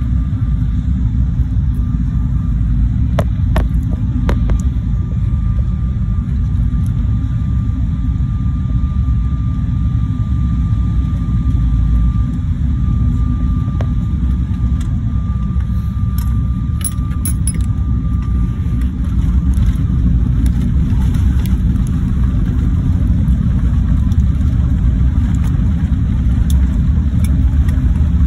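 Airliner cabin noise by a window over the wing during landing: a steady low rumble from the engines, airflow and then runway roll, with a faint steady whine through much of it and a few rattling clicks. The rumble and a higher rush grow louder about two-thirds of the way in as the jet rolls out on the runway.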